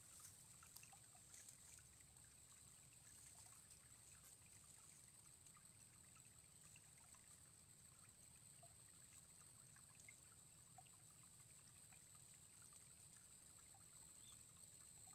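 Near silence: faint outdoor ambience with a steady soft hiss and a low background rumble.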